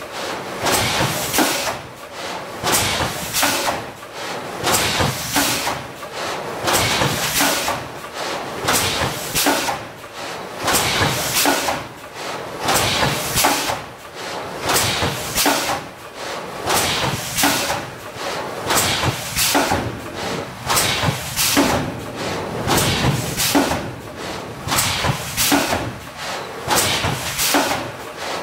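GN800 thermoforming machine cycling in production: sharp clunks of the forming press with bursts of rushing air, repeating about every two seconds.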